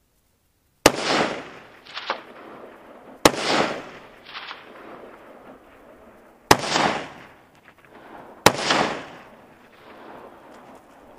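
ArmaLite AR-15 (SPR Mod 1) rifle in 5.56 mm firing four deliberate single shots a couple of seconds apart. Each crack is followed by a rolling echo off the surrounding hills. After each of the first two shots a fainter second crack follows about a second later.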